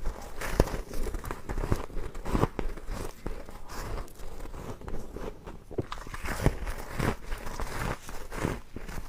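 White ice being bitten and chewed close to the microphone: irregular sharp crunches and crackles, several a second.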